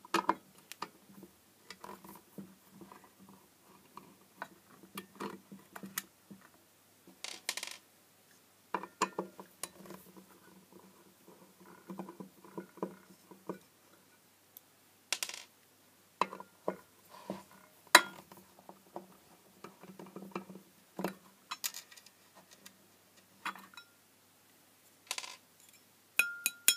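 Small screws being undone with a screwdriver and put down, and the thin metal reflector of an LED floodlight being worked loose and lifted out of its housing: irregular clicks, taps and light metallic clinks.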